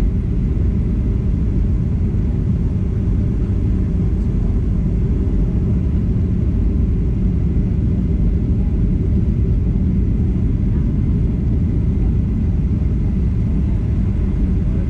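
Steady low rumble inside the cabin of a Boeing 737-900ER, the noise of its CFM56-7B engines and the airflow heard from a rear window seat.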